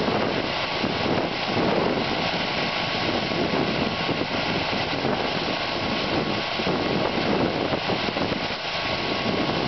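Walk-behind snowblower's engine running steadily under load while its auger throws grain from a pile out through the chute.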